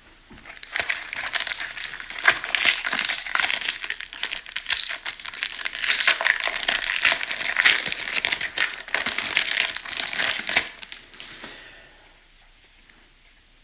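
Foil card-pack wrapper being crinkled and crumpled by hand, a dense crackling that goes on for about eleven seconds, then stops.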